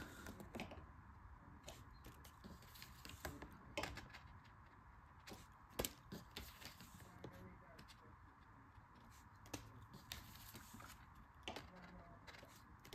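Faint, scattered clicks and taps of stiff art cards being handled and set down on a tabletop, over quiet room tone; the sharpest click comes about six seconds in.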